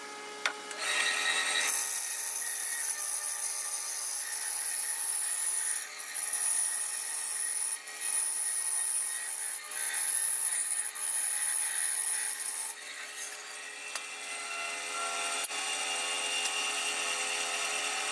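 Benchtop bandsaw running and cutting through a thick block of wood. The cutting noise starts about two seconds in, eases briefly a few times, and stops about two-thirds of the way through. The saw keeps running without cutting after that.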